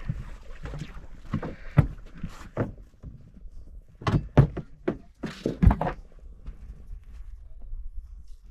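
Irregular thuds and knocks on a boat over a low steady rumble, the loudest three about two, four and a half, and nearly six seconds in; the knocks mostly die away in the last couple of seconds.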